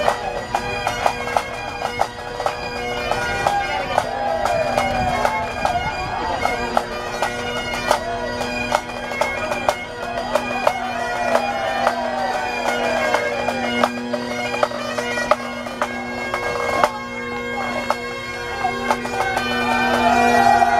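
Bagpipes playing a melody with quick grace notes over steady drones, with a regular beat of sharp percussive strikes about two or three a second.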